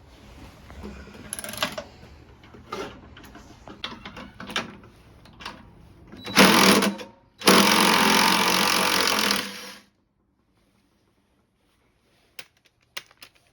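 Handheld power driver running in two bursts, one of about a second and then one of about two seconds, turning a fastener during the teardown of a washing machine. The bursts come after several seconds of clinks and knocks from hand tools against the machine, and a few sharp clicks follow near the end.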